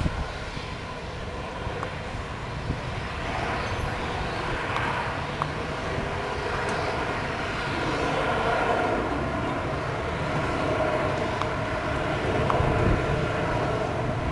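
Boeing 737's jet engines heard from afar as the airliner rolls out on the runway after touchdown: a steady rushing jet noise that swells over the first several seconds and then holds. Gusts of wind rumble on the microphone throughout.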